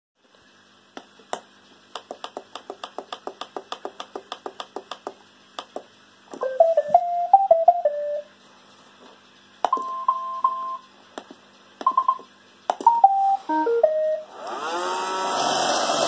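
iRobot Roomba robot vacuum: a quick run of clicks, then several short electronic beep melodies and beeps. Near the end its motors start up with a rising whine and keep running.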